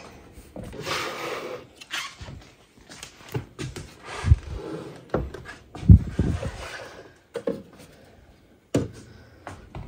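Sewing machine parts and accessories being handled on the table: a string of knocks and thunks with some rustling between them, the loudest thunk about six seconds in.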